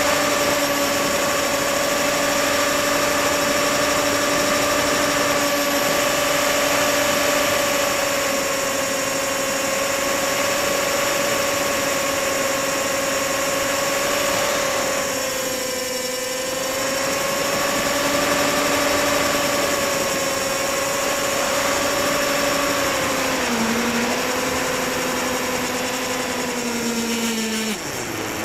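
Electric motor and propeller of a HobbyZone Firebird Stratos RC plane, heard from a camera mounted on the plane: a steady whine at one pitch over a hiss. It dips briefly about halfway, steps down slightly near the end, then falls quickly in pitch as the motor slows.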